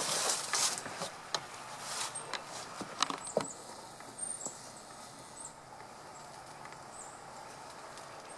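Soil and vines rustling and scraping, with sharp clicks and knocks, as sweet potatoes are dug by hand. The loudest strikes come about three seconds in, and it goes quieter after that. Small birds give short high chirps every second or so.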